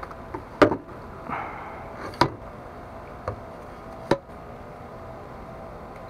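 Hard plastic parts of a PVC-pipe yabby pump and its 3D-printed PLA handle being handled and fitted together: four sharp knocks and clacks spread over about four seconds, with a short scrape between the first two.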